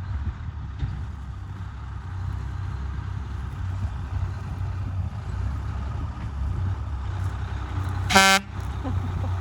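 Vehicle engine running steadily with a low rumble, and one short horn toot about eight seconds in.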